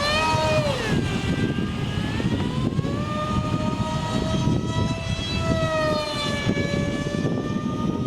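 Electric DC motor and propeller of a small homemade RC jet plane whining in flight over a low rumble. The pitch drops about a second in, climbs again about three seconds in and then holds nearly steady, following the throttle.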